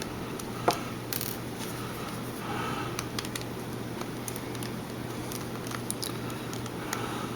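Faint clicks and scrapes of a small precision screwdriver working tiny screws out of an Olympus SP-600UZ camera body, the sharpest click about a second in, over a steady low hum.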